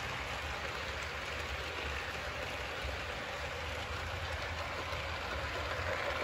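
HO scale model freight cars rolling past on sectional track, with a steady rumble and hiss of wheels on the rails.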